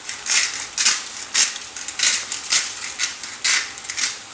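Hand-twisted salt grinder grinding salt in short gritty crunches, about two a second.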